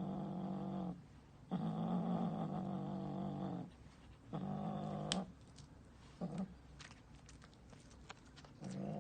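A domestic cat growling in long, steady, drawn-out stretches with short pauses between them. The third growl is short, and a brief one follows about six seconds in. Light clicks sound during the quieter stretch before a new growl starts near the end.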